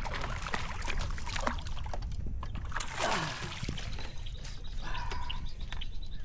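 Water splashing and sloshing beside a kayak as a hooked largemouth bass thrashes at the surface while being landed, in a rapid irregular series that is busiest in the first three seconds, over a low wind rumble.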